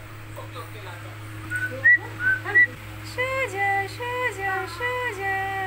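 High whistle-like calls: a few short rising chirps, then a two-note figure sounded four times, each falling to a lower held note. A steady low hum runs underneath.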